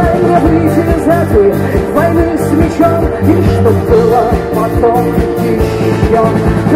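Live rock band performance: a woman singing over acoustic guitar, bass and drums.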